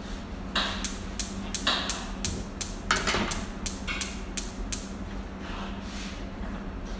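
Gas stove burner igniter clicking rapidly, about three clicks a second for some four seconds, with a few short hissing bursts of gas among the clicks. A steady low hum runs underneath.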